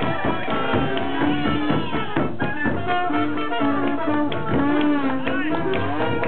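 New Orleans-style jazz band playing a swing tune, with trumpet and trombone lines, some sliding, over a steady beat.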